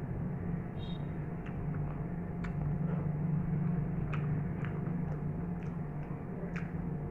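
Eating sounds from chewing a handful of rice and chicken curry eaten with the fingers: scattered sharp wet clicks and smacks at irregular spacing, roughly one a second, over a steady low hum.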